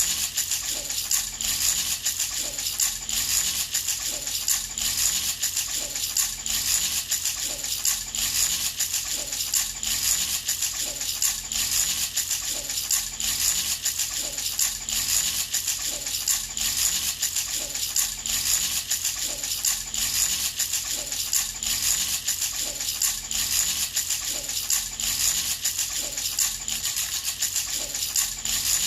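A baby rattle shaken over and over in a steady rhythm, rattling and jingling continuously.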